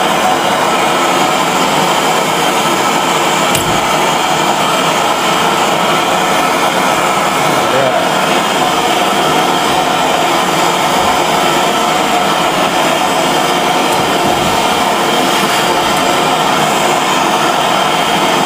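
Hand-held MAPP gas torch burning with a steady hiss while it heats a copper-pipe-to-brass-valve joint for soldering.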